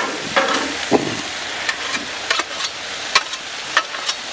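Sliced peppers and onions sizzling on a steel Blackstone flat-top griddle, with metal spatulas scraping and clacking against the griddle top as the vegetables are tossed: a steady sizzle broken by about eight sharp strokes.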